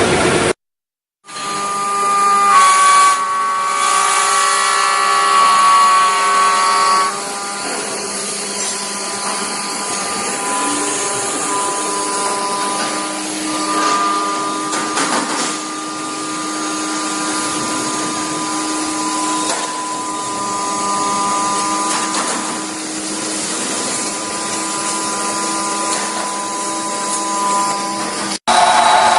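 5-axis CNC router spindle whining steadily as it machines wood, with several fixed tones. There is a brief break near the start. The first few seconds are louder, with extra higher tones, before the sound settles lower.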